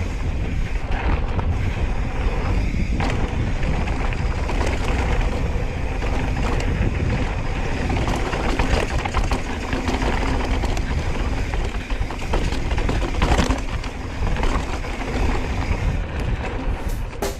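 Wind buffeting the microphone over a rough rolling rumble, with scattered clicks and rattles from a mountain bike riding a dirt trail.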